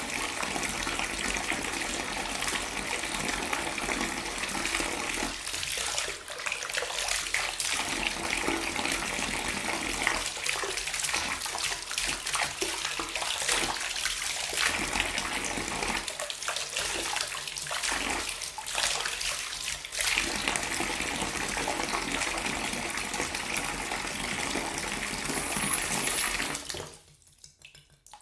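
Water pouring in a steady stream, splashing into water below, with some unevenness in the middle stretch; it stops abruptly near the end, leaving a few faint drips.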